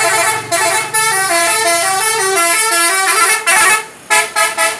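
A bus's telolet horn, a multi-tone musical horn, playing a quick tune of stepped notes for about three and a half seconds, then three short blasts after a brief break.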